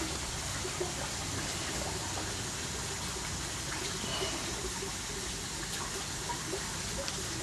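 Steady rush of running water, with a few faint clicks and small splashes over it.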